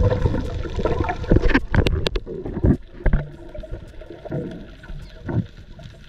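Water splashing and sloshing, with a few sharp knocks about two seconds in. After that it turns quieter and muffled, with only occasional low thumps.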